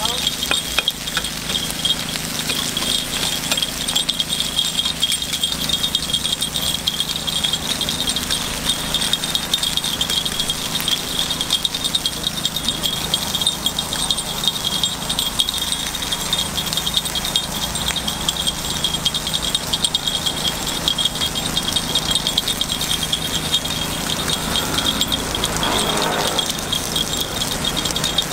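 Food frying in hot oil: a dense, steady sizzling crackle.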